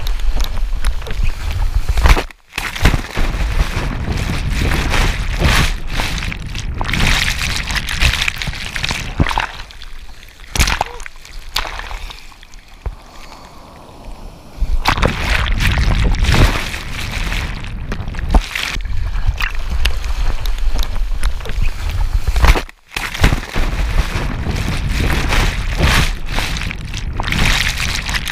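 Whitewater rushing and splashing over a bodyboard and the camera on its nose, cutting out suddenly twice, with a quieter stretch in the middle.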